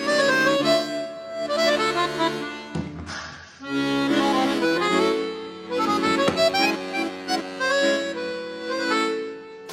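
Instrumental background music: a tune of held chords under a moving melody, with a brief break about three seconds in.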